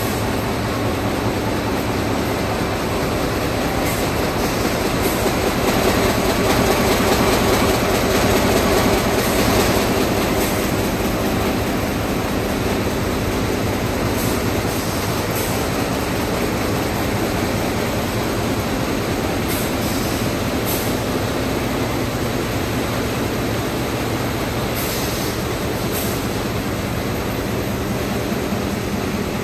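Flexo printer folder gluer running in production: a steady, fast mechanical clatter of rollers and box-folding conveyors, swelling louder for a few seconds about a quarter of the way in.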